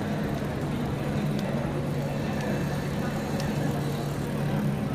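Steady city street traffic noise with a constant low hum and a few faint clicks.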